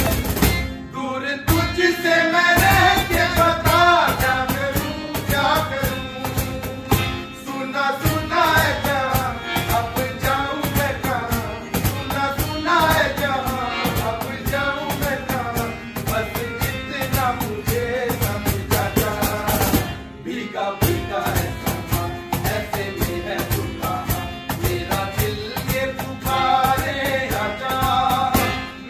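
A man singing a Hindi film song over strummed acoustic guitar and a cajón slapped in a steady beat. The music breaks off briefly about two-thirds of the way through, then picks up again.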